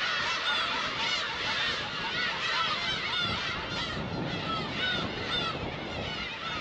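A colony of black-tailed gulls calling all at once: a dense, unbroken chorus of overlapping cat-like mewing calls.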